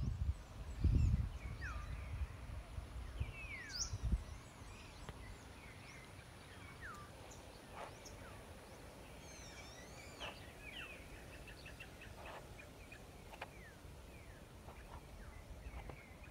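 Several birds calling in the trees: many short downward-sliding whistles and chirps, overlapping throughout. A low buffeting rumble on the microphone comes in the first second and again about four seconds in.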